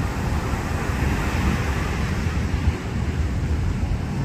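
Strong wind buffeting the microphone as a steady rumble, over the wash of waves breaking on a sandy beach.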